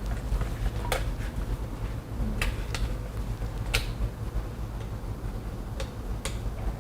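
Four sharp, separate clicks as an old wall switch panel is taken apart by hand, over a steady low hum.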